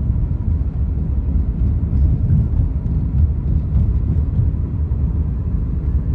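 Steady low rumble of a car driving, heard from inside the closed cabin: road and engine noise.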